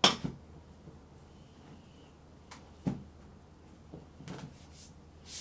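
Household handling knocks in a small room: a sharp loud knock at the start, another about three seconds in, then a few lighter clicks.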